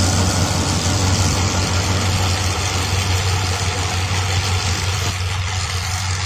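Farm tractor's engine running steadily at constant speed under load, driving a tractor-mounted trencher, with a strong even low hum.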